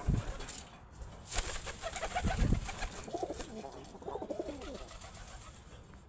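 Feral pigeons cooing in wavering calls, after a couple of sharp wing flurries as the birds leave a hand.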